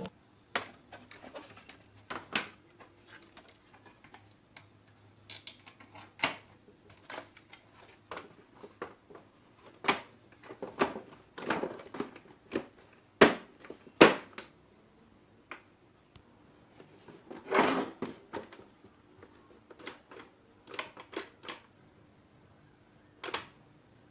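Irregular small clicks and knocks of hard parts being handled and fitted, as in reassembling an old radio, with two louder knocks about halfway through and a longer clatter a few seconds after them.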